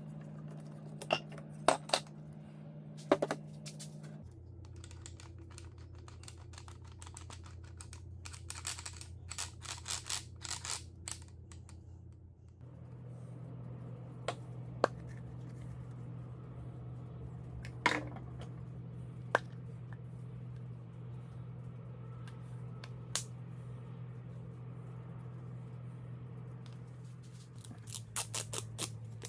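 Scattered sharp clicks and knocks of hand-worked metal and plastic parts on a wooden workbench: first a screwdriver against a cordless angle grinder's head, later small plastic containers and a metal nut being set down and handled, with a quick run of clicks near the middle and again near the end. Under it runs a steady low hum that changes pitch twice.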